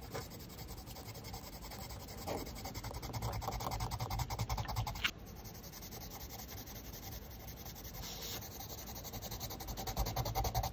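Caran d'Ache Luminance colored pencil shading on paper: fast back-and-forth scratchy strokes as a colour swatch is filled in. The strokes stop sharply about five seconds in, then start again more softly on the next swatch and grow louder toward the end.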